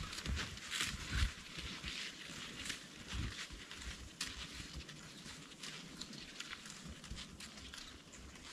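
Sliding snowshoes crunching and scraping through snow in an uneven walking rhythm, with a low rumble underneath, the steps getting fainter toward the end.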